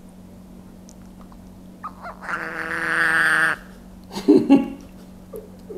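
Budgett's frog (Lepidobatrachus laevis) giving its defensive scream about two seconds in: one buzzy, wailing cry lasting just over a second and growing louder, made when the frog is disturbed. A shorter sound follows a second later over a steady low hum.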